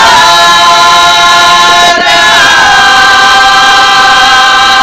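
A group of folk singers singing a cappella in the traditional Herzegovinian style, holding long, loud notes. About two seconds in they break off briefly, and the held note then steps down in pitch.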